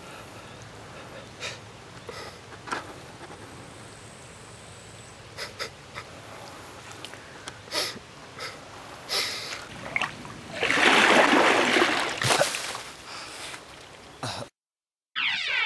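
Loose soil being dropped onto a person lying on the ground: scattered soft patters and small impacts, then a longer rushing pour of earth about eleven seconds in. The sound cuts off abruptly near the end.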